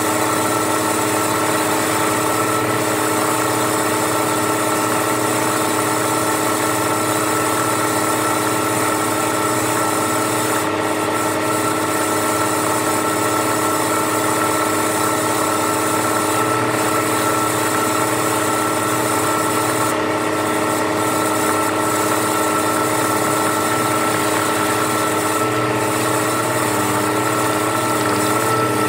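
An engine running steadily at a constant speed, a loud drone with several steady tones, wavering slightly near the end.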